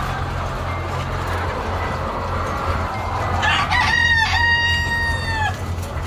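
A chicken crows once: a single long call of about two seconds starting about three and a half seconds in, over the clucking of caged laying hens and a steady low hum.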